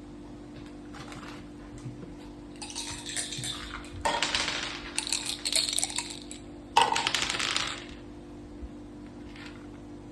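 Dice and playing pieces clattering on a mak saka (Thai backgammon) board, in three spells of rattling clicks, the loudest starting with a sharp clack about seven seconds in.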